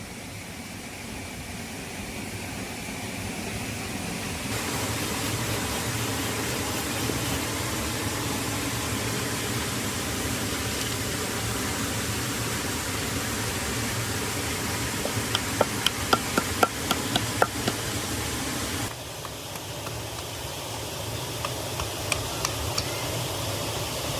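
Steady hiss of rain, with a quick run of sharp knocks about two-thirds of the way through and a few more near the end.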